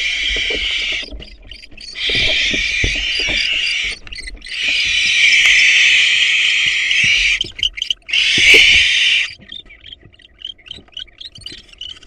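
Barn owls in a nest box giving four long, harsh hisses of about one to three seconds each, with short breaks between. Near the end the hissing stops and a quick run of short clicks follows, with soft knocks of the birds moving in the box.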